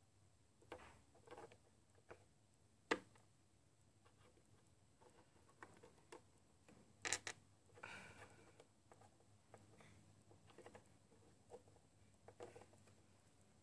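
Near silence broken by faint scattered taps and clicks of small plastic toy pieces being handled and set down on wooden blocks. The sharpest tap comes about three seconds in and a quick pair about seven seconds in.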